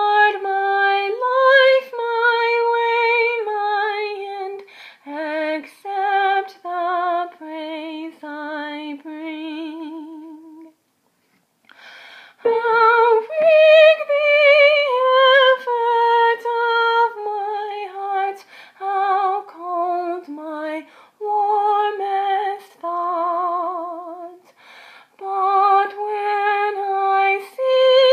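A woman singing a hymn tune a cappella, in a clear voice with vibrato on the held notes. She breaks off for about a second and a half near the middle, then sings on.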